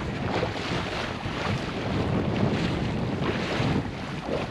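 Wind buffeting the microphone over the rush of sea water along the hull of a Jeanneau Sun Odyssey 33.1 sailing yacht under sail, steady throughout.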